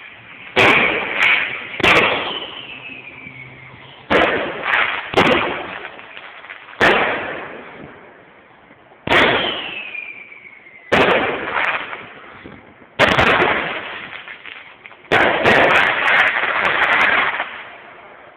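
Consumer fireworks going off in a string of loud bangs, about a dozen spread one to two seconds apart, each trailing off in an echo. A falling whistle twice follows a shot, and near the end there is a dense burst of crackling.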